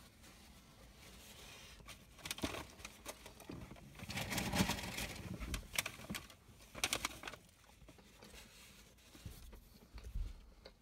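Faint sounds of a person eating: chewing, breathing and the rustle of a paper sandwich wrapper, with a denser patch of rustling about four to five seconds in and a few sharp crinkles near seven seconds.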